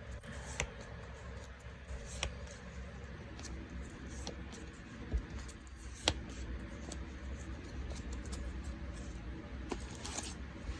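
Magic: The Gathering trading cards being handled and flicked through by hand: soft sliding with a few scattered light clicks and snaps of card on card, over a low steady hum.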